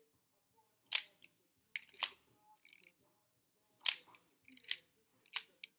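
Nikon F 35 mm SLR's mechanical shutter fired three times, each sharp release followed by a quick run of smaller clicks from the film advance lever being wound to cock the shutter for the next shot.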